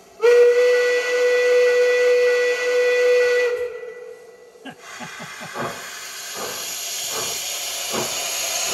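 Sound decoder of a KM1 model BR 05 steam locomotive, played through its speakers: one steady steam-whistle blast of about three seconds. A couple of seconds later comes steam hissing from the cylinders with irregular soft chuffs, growing louder.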